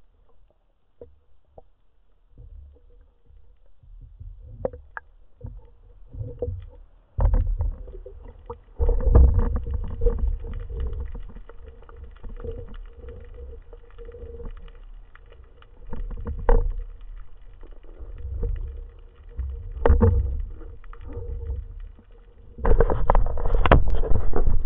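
Underwater water noise picked up through a camera's waterproof housing: low rumbling swirls of moving water that swell in several loud bursts, with scattered knocks and bumps and a faint steady hum underneath.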